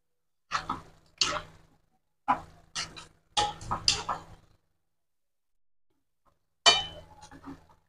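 Spatula stirring and scraping through a stir-fry in a frying pan, in short bursts with sharp knocks against the pan; a pause of about two seconds, then one last loud knock and scrape near the end.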